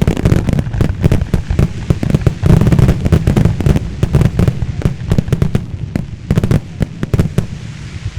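Aerial firework shells bursting in a dense, rapid barrage, several reports a second, the closing barrage of a display. The bangs thin out and die away near the end.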